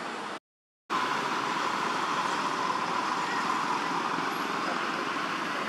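A steady outdoor background drone with no distinct events, centred in the middle of the pitch range. It breaks off into total silence for about half a second just after the start, then resumes slightly louder.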